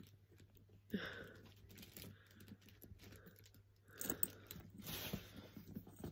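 Faint handling noise from a Loungefly mini backpack: small clicks and crinkles as its gold metal zip pull and charm are fingered and the bag is shifted, a little louder about a second in and again around four to five seconds.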